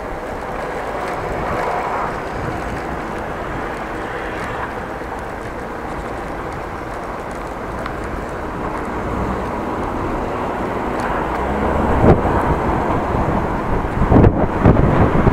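Wind rushing over the microphone with road noise while riding a bicycle through city streets; from about twelve seconds in the wind buffeting grows louder and choppier.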